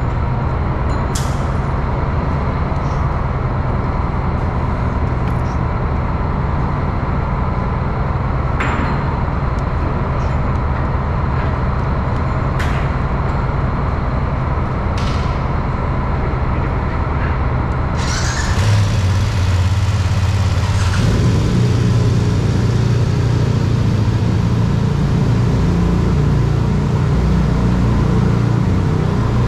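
Steady low engine drone with a few sharp clicks in the first half. A little past halfway a deeper, steady engine note joins in and the drone grows louder.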